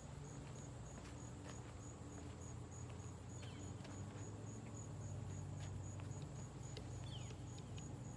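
Insects chirping in a steady rhythm, a high pulsed chirp about three times a second, over a low steady hum, with scattered light clicks.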